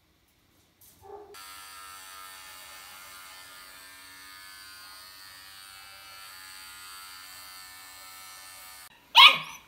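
Electric pet hair clippers buzzing steadily as they shave the fur on an anaesthetised puppy's ear before ear cropping. Near the end comes a short, loud puppy yelp.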